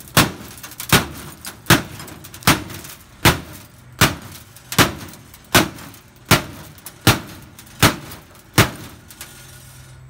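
Stainless-steel hammer head of a tactical axe/hammer multitool striking a metal filing cabinet over and over: about eleven hard metal-on-metal bangs, evenly spaced at roughly one every three-quarters of a second, each ringing briefly, stopping about a second before the end.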